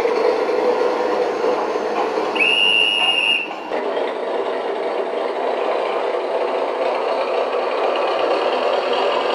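Gauge 1 model diesel locomotive running on its track, with a single steady horn blast about two and a half seconds in that lasts about a second. From about four seconds in, a steady diesel-engine running sound, the smoke-equipped locomotive's own engine sound.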